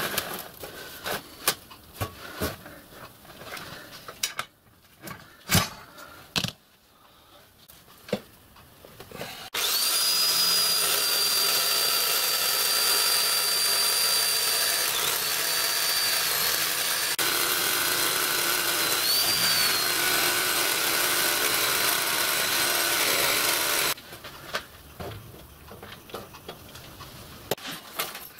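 Knocks and clicks of a brass sheet being clamped and handled on a workbench. About ten seconds in, an electric jigsaw with a metal-cutting blade starts and saws through the brass sheet with a steady high motor whine for about fourteen seconds, then stops abruptly. A few more knocks follow.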